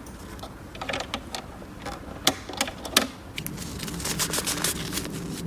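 Small hard plastic toy pieces clicking and tapping as they are handled, with two sharper knocks about two and three seconds in and a quicker run of light clicks near the end.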